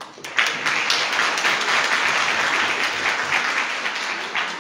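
Audience applauding. It starts a moment in and dies away near the end.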